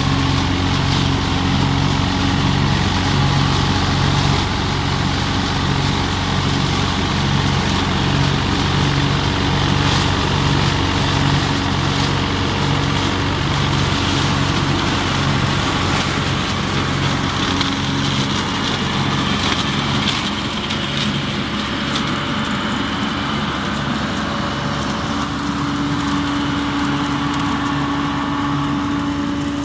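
Yanmar FX215 compact tractor's diesel engine running steadily under load while driving a 1.2 m flail mower that chops standing dry corn stalks, with scattered sharp cracks from stalks hitting the flails. About twenty seconds in, the engine note changes and a higher tone comes forward.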